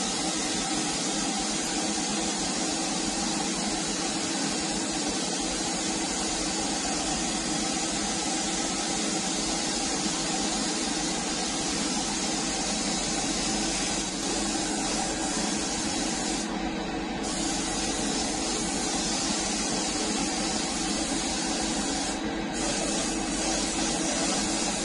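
Gravity-feed spray gun hissing steadily with compressed air as it lays chameleon base coat on a panel, with a steady hum beneath. The hiss thins out briefly twice in the second half, as the trigger is eased.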